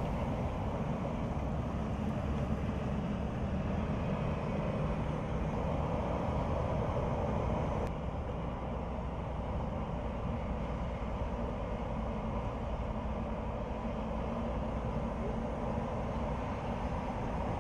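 A Mercedes-Benz Tourismo coach driving on the road, giving a steady engine rumble and tyre noise. The level drops slightly at a cut about eight seconds in.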